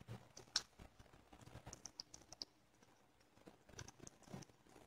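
Near silence with faint, scattered soft clicks and taps of a silicone spoon scooping carrot cream from a bowl and spreading it in a cake tin.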